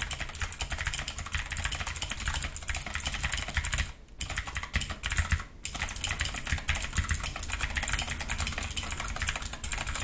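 Fast typing on an Ajazz AK33 mechanical keyboard with clicky blue-type switches: a dense, rapid stream of key clicks, broken by two brief pauses about four and five and a half seconds in.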